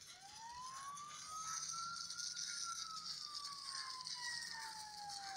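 Electronic wailing siren, its pitch rising slowly for about two seconds, falling over the next three, then starting to rise again near the end.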